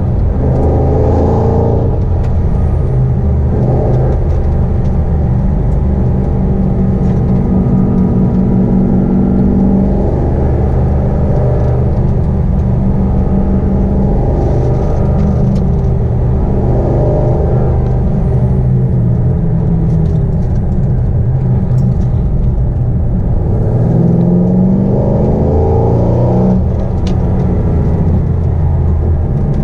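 Supercharged 6.0-litre L77 V8 of a Holden VE SS-V Redline ute running hard at race pace. Its pitch rises as it accelerates shortly after the start and again a few seconds before the end, holding steadier revs in between.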